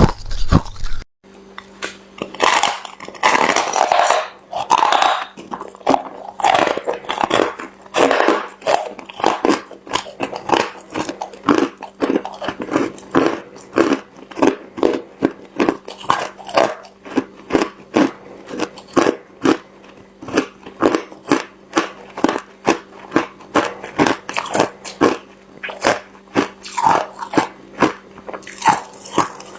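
Hard ice being chewed close to the microphone: a fast, steady run of sharp crunches, a few a second, with heavier crunching bites in the first few seconds. A faint steady hum sits underneath from about a second in.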